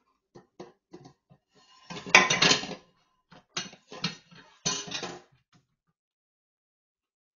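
Dishes and cutlery clattering in a stainless steel kitchen sink as a dog paws at them. A few light clinks lead into a loud rattle about two seconds in, then two more bursts of clatter before it stops after about five and a half seconds.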